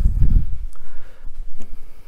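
Handling noise and footsteps from a handheld camera being carried around: a low thud at the start, then a faint low rumble with a few light clicks.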